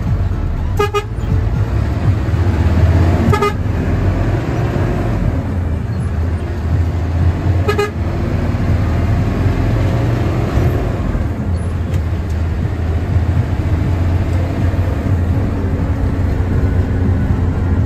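Front-mounted diesel engine of a Hino AK bus rumbling steadily in the cabin as the bus pulls away and drives on. Three short horn toots come in the first eight seconds.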